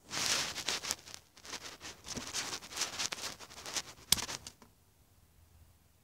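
Small pruning shears working in a pyracantha bonsai: leaves and twigs rustle with small clicks, then one sharp snip about four seconds in as the top shoot is cut off.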